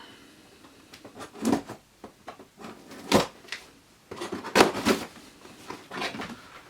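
Shipping package being opened by hand: scattered rustling and scraping of packaging, with a sharp knock about three seconds in and a busier stretch of handling a second later.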